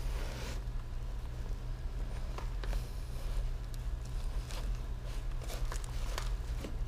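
Faint, scattered clicks and scrapes of plastic Malice clips and nylon webbing being handled as a clip is pushed into its slot, over a steady low hum.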